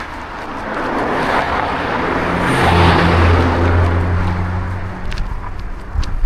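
A motor vehicle passing on the road: its tyre and engine noise swells to a peak about halfway through, with a low steady engine hum, then fades away.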